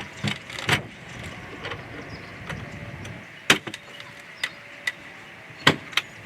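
Scattered sharp knocks and clunks as the wooden swarm trap box is handled and lifted into the tree, two near the start and a cluster over the last few seconds.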